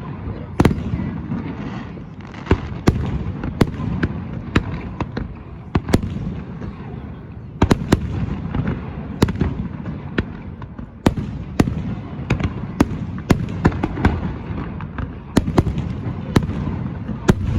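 Fireworks going off: sharp cracks and pops at irregular intervals, one to three a second, over a continuous low rumble of further bursts.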